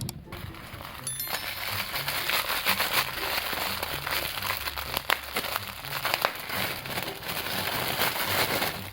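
Packaging being handled and opened: dense crackling and crinkling with a few sharper snaps, starting about a second in and stopping just before the end, over soft background music.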